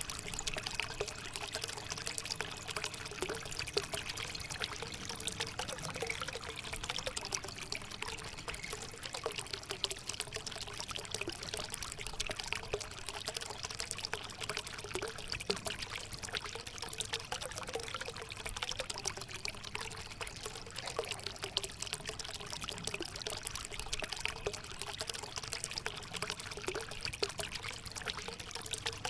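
Homemade cement water fountain running: water pouring and trickling steadily into its basin.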